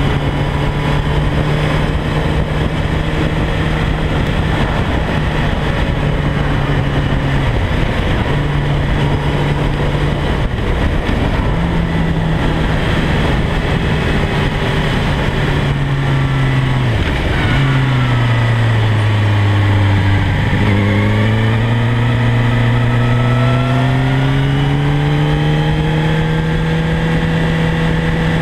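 Sport motorcycle at speed, with heavy wind rush over the fairing-mounted camera and the engine's drone underneath. The engine note dips briefly twice. Past the middle it drops low, then climbs steadily for several seconds as the bike accelerates.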